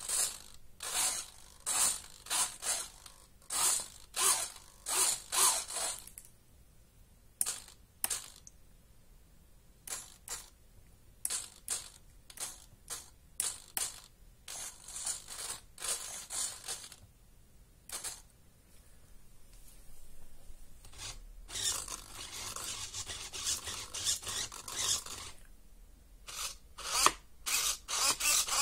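Small RC servos buzzing in many short spurts as they swing the foam-board plane's tail control surfaces back and forth, with one longer run of several seconds past the middle.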